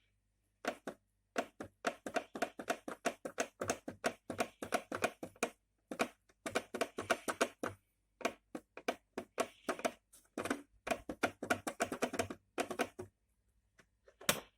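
Rapid runs of light, sharp clicks, several a second, in bursts of a few seconds each with short pauses between them.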